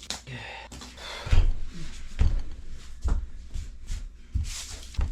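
About five dull thumps and knocks spread over a few seconds, with rustling in between: hands pressing and patting a screen door's adhesive strip onto a wooden door frame.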